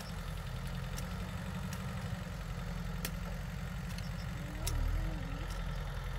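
Two-wheel walking tractor's diesel engine idling steadily, a low rumble that swells briefly about halfway through.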